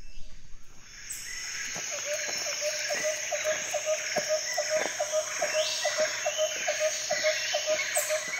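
Outdoor nature ambience of chirping insects, with a steady rhythmic chirp about three times a second. It comes in suddenly about a second in and fades out near the end.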